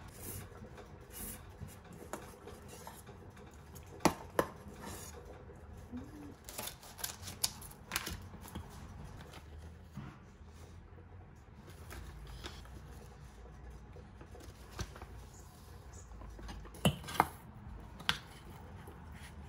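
Metal spoon clinking and scraping against a stainless steel bowl while mixing cooked rice, with sharp clinks now and then, two close together about four seconds in and two more near the end.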